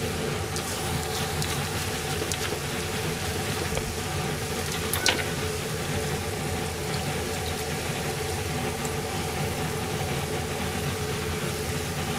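Steady low hum from a kitchen gas stove with an iron sukiyaki pan cooking on it. Light clicks of the ingredients being placed in the pan, with one sharper clink about five seconds in.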